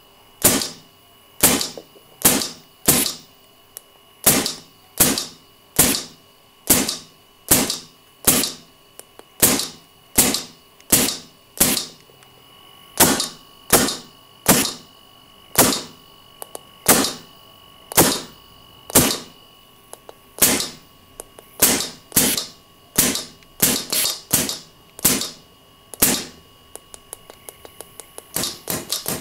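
Solenoid-driven hammer valve of a homemade airgun cycling over and over, each stroke a sharp snap with a short decaying tail, at a steady pace of a bit more than one a second. Near the end it goes into a quick run of faster, lighter clicks.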